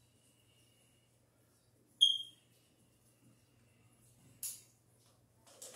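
Pliers working on a twisted wire splice: a single short metallic clink that rings briefly about two seconds in, then a sharp click about two and a half seconds later and a softer click near the end, over a faint steady low hum.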